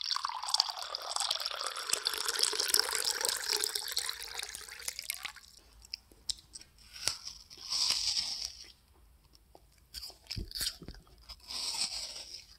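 Water poured from a glass bottle into a drinking glass, running for about five seconds. Then a child bites into and chews an apple, with crisp crunches about two-thirds of the way through and again near the end.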